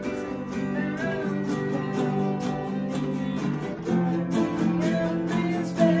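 Three acoustic guitars strummed and picked together in a steady rhythm, playing a song.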